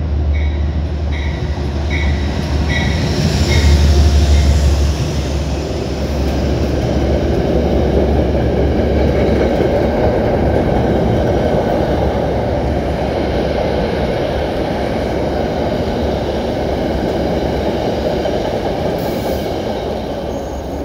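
Metro-North commuter train led by a P32AC-DM locomotive running into the station past the platform, its bell ringing about twice a second for the first few seconds. The sound is loudest as the locomotive goes by, then settles into a steady rumble of the passenger cars' wheels on the rails.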